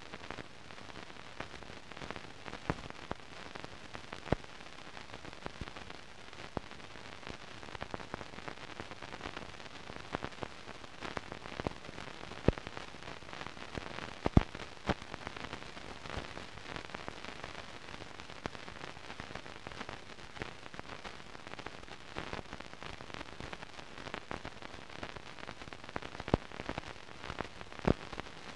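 Steady hiss with scattered clicks and pops, a few of them sharper and louder: background noise of a silent archive film with no recorded sound.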